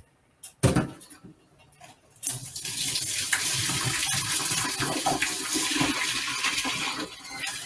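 Cooked spaghetti and its hot water being poured from a heavy pot into a colander in the sink: a knock, then about two seconds in a steady rush of pouring water that eases off near the end.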